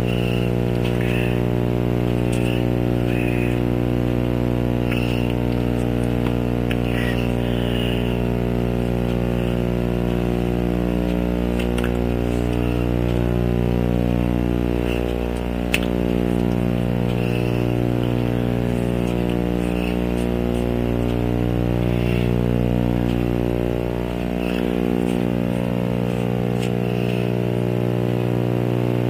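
A steady, unchanging low hum with many overtones, like an electrical or motor drone, with faint recurring blips above it and a single click about halfway through.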